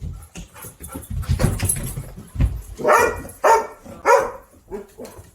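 Black Labrador greeting excitedly: low thumps and scuffling, then three short, loud cries about three to four seconds in.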